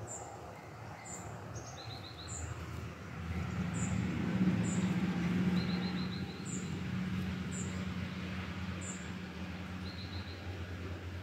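Outdoor birds calling: a short high chirp repeated about once a second, with brief quick trills of a few notes, over a low rumble that swells in the middle and then eases off.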